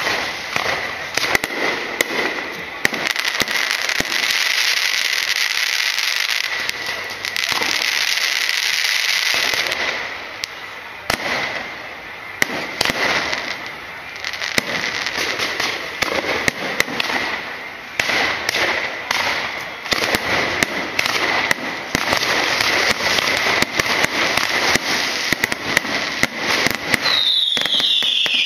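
Aerial fireworks display: a dense, continuous barrage of sharp bangs from bursting shells, with a hissing crackle from the falling stars between them. Near the end a whistle glides down in pitch over the bangs.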